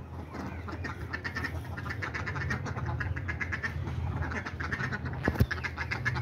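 Several domestic ducks quacking in quick runs of short calls. A single sharp knock about five seconds in.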